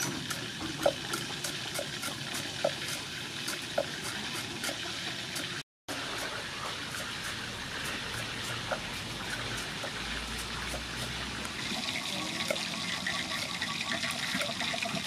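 Cleaver chopping on a wooden cutting board: a few sharp knocks, a second or two apart, through the first four seconds as garlic is cut, over a steady hiss. The sound cuts out briefly near the middle, then only fainter cuts continue under the hiss.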